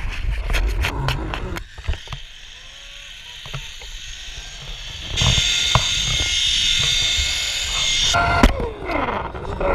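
Zipline trolley pulleys running along a steel cable: a steady high whir from about five seconds in that lasts about three seconds and stops suddenly. Low rumble and knocks on the camera near the start and end.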